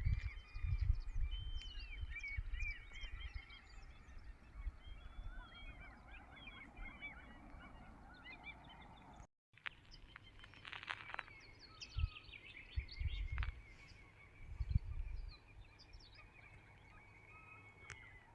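Many birds calling over one another, a steady stream of short rising-and-falling calls, with gusts of wind rumbling on the microphone near the start and again later. The sound drops out completely for a moment about halfway through.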